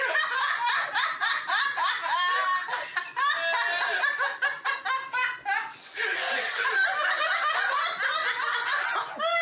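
Several people laughing hard together, in quick high-pitched overlapping peals that swell into a continuous burst of laughter about two-thirds of the way through.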